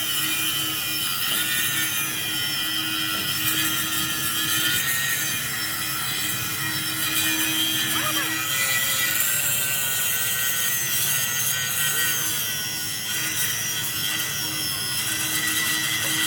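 A power tool grinding steadily, a continuous rasping noise with a whine that drifts up and down in pitch.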